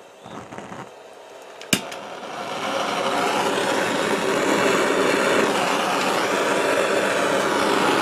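Handheld gas torch: one sharp igniter click a little under two seconds in, then the flame burning with a steady hiss that builds over about a second and holds.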